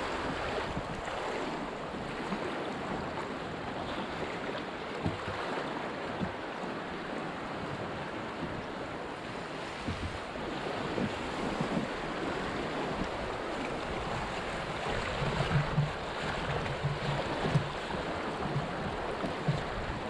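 River water rushing through a grade II rapid around an open canoe, a steady rough wash. Low thumps come more and more often in the last few seconds.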